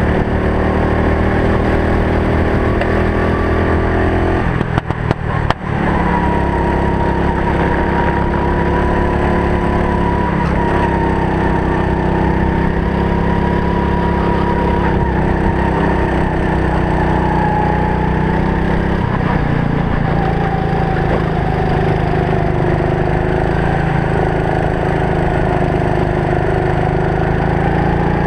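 Go-kart engine running hard, heard from the driver's helmet camera, its pitch rising and falling as it revs through the corners. There is a short rattle of knocks about five seconds in.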